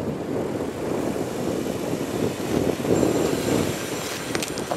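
A 2022 Subaru Forester Wilderness's 2.5-litre flat-four engine runs under light load as the SUV crawls slowly over a log-and-dirt ramp, with tyre and dirt noise. A few sharp clicks come near the end.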